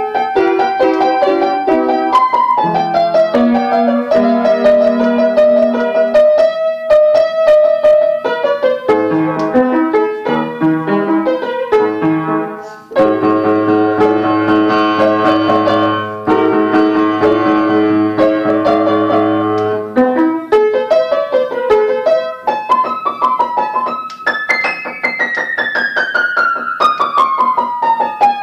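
Solo piano being played with both hands: a melody over lower notes, a brief break about halfway in, then a stretch of repeated chords over deep bass notes, and near the end a run of notes that climbs and then steps steadily down.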